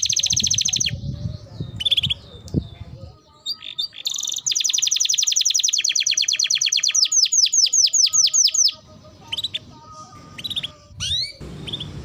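Canary singing: a fast rolling trill at the start, then scattered notes, then a long rapid trill of repeated down-slurred notes from about four to nearly nine seconds in, ending with a few separate chirps and upward slides.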